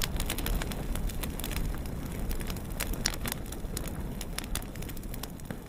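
Fire burning: a rushing noise full of sharp crackles and pops, slowly dying away.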